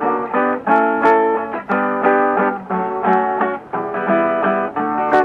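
Acoustic guitar strumming chords in a steady rhythm, an instrumental break in a sung hymn.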